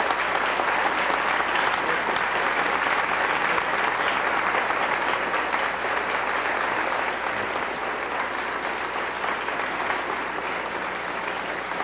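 Large audience applauding steadily, easing off a little toward the end.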